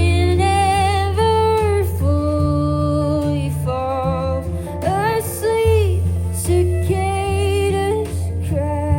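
A woman singing a slow song over acoustic guitar, holding long notes with a light vibrato, with steady low bass notes underneath.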